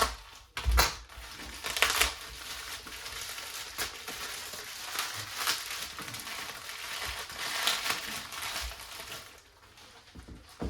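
Knife packaging being unwrapped by hand: continuous crinkling and crunching of wrapping, with a few sharp knocks about a second in, dying away near the end.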